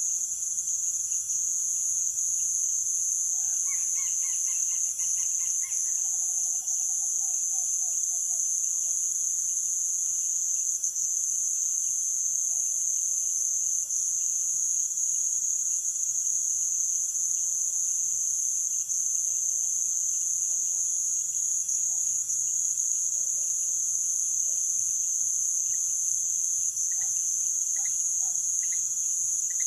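Amazonian night insect chorus, crickets and other insects trilling in a steady high-pitched drone. A short call from another animal comes about four seconds in, and scattered short chirping notes come near the end.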